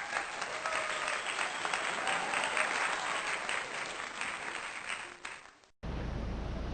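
Applause: many hands clapping, with a faint shout or two in it, fading out after about five seconds.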